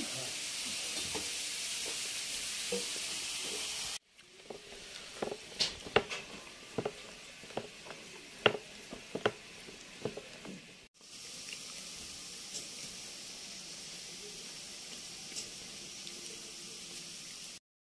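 Wooden rolling pin working dough on a wooden board, knocking sharply and unevenly about twice a second. Before and after it comes a steady hiss, with sudden cuts between the parts.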